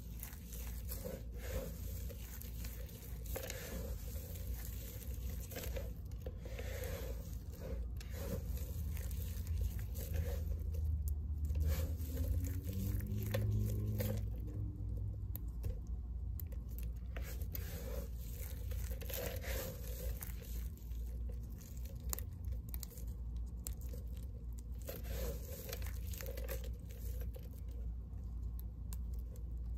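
Hands squeezing and crumbling handfuls of cut bar-soap chunks and shavings: irregular crisp crunching and crackling as the pieces break and fall back onto the heap. A low hum swells briefly around the middle.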